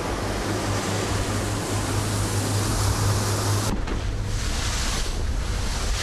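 Sport-fishing boat underway: a steady engine drone with a low hum, under a wash of water and wind noise. A little past halfway the hiss suddenly falls away, leaving mostly the engine hum.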